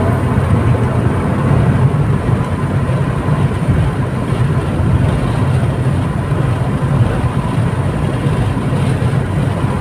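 Steady road noise inside a moving car's cabin: tyres on asphalt and the engine running, an even low rumble.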